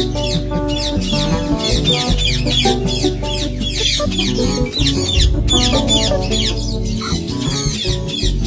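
Ringneck parrots chattering in rapid, high, downward-sliding chirps over background music with a steady bass line.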